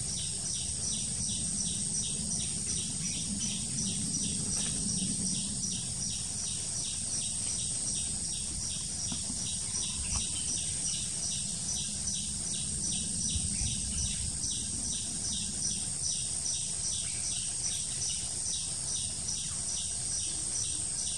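Forest insects calling: a steady high-pitched drone with a fast, regular pulsing chirp under it, over a low rumble of wind or handling noise.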